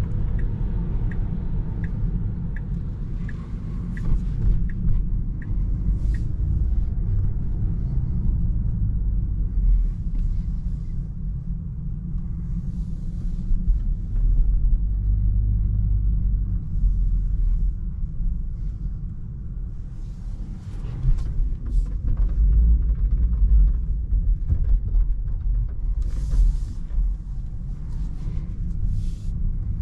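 Low rumble of tyre and road noise inside the cabin of an electric Tesla Model 3 driving over snowy roads, with no engine sound. A turn signal ticks about eight times, evenly spaced, during the first five seconds or so, and brief hissing swishes come and go later.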